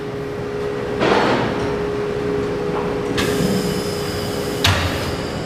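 Workshop background noise: a steady hum, with a clunk about a second in, a rush of hissing noise from about three seconds, and a sharp click near the end.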